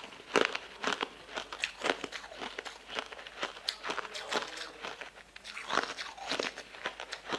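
Crunching and crackling of a block of frozen shaved ice being bitten and chewed, a quick irregular run of crisp crunches several times a second.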